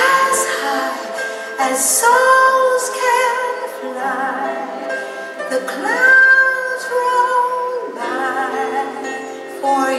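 A woman singing long held notes with vibrato, sliding up into each new phrase, as part of a musical performance.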